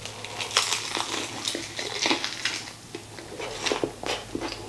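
Crunching of the crispy batter on Korean fried chicken as a man bites into a sauce-coated piece and chews it, a run of irregular sharp crackles.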